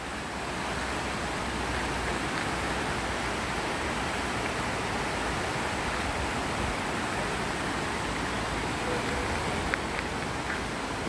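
Shallow mountain creek rushing over rocks and boulders: a steady, even rush of water.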